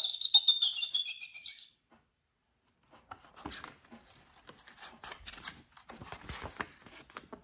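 Recorded eagle call played by a children's sound-book button pad: one high, slightly falling screech of under two seconds. After a short pause, the stiff pages of a large picture book are flipped through, rustling and crackling.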